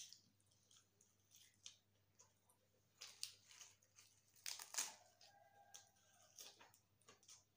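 Quiet mukbang eating sounds: fresh lettuce leaves crinkling and tearing in the hands as they are wrapped around grilled pork, loudest about three and five seconds in, amid faint mouth clicks and chewing.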